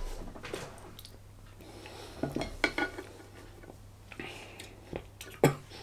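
Metal spoon clinking and scraping against a bowl of chilli, in a few short clusters of light clicks: about two seconds in and again near the end.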